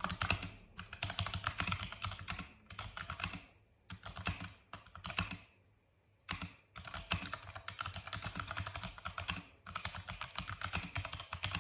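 Typing on a Vortex VX5 mechanical keyboard with stock Outemu Brown switches: fast runs of keystrokes, broken by short pauses about four and six seconds in.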